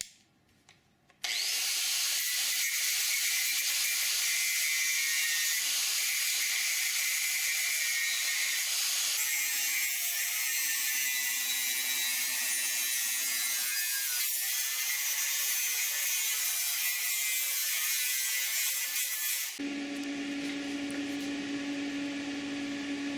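A power tool cutting steel tubing: a steady, high, hiss-like cutting noise starts about a second in. Near the end it changes to a lower, steady buzzing hum. This is the tube being recut so its bend can be corrected.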